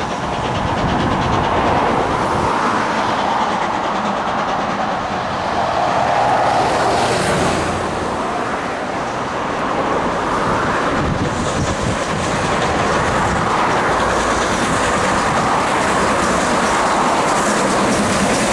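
A train running along the line: a steady rolling noise of wheels and wagons on the track with a light clatter, swelling and easing a little.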